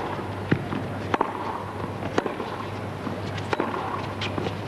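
Tennis rally: a ball struck by rackets and bouncing on a hard court, with sharp pops roughly every second over a steady low hum.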